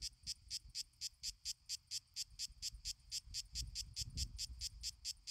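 A cricket chirping steadily and evenly, about five chirps a second, with a faint low rumble underneath.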